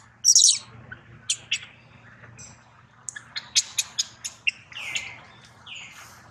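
Newborn macaque crying in distress: one loud shrill scream right at the start, then a run of short high-pitched squeaks and two falling squeals.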